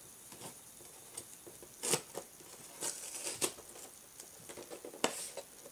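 Fingernails picking and tearing at the cardboard packaging of an action-figure box: several short scratching and ripping sounds, the strongest about two seconds in and near the end.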